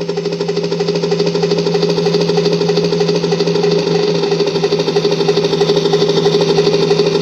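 Helicopter running with its rotor blades chopping in a rapid, even pulse over a steady engine drone.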